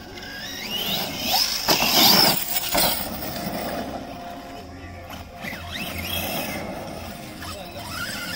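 Electric RC monster truck motor whining up in pitch as the truck accelerates, twice, with a loud rush of noise about two seconds in.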